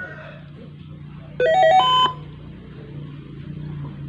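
Samsung CS21V10MQ CRT television playing its short power-on melody as it is switched on: a few quick stepped tones that climb in pitch, lasting under a second, about a second and a half in.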